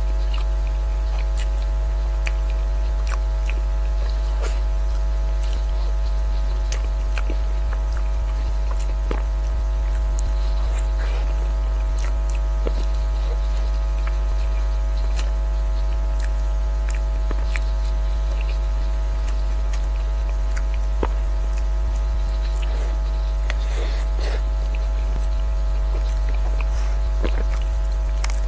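Steady electrical mains hum with a buzz of evenly spaced overtones. Over it come faint, scattered soft clicks and smacks of a mouth eating mousse cake from a spoon.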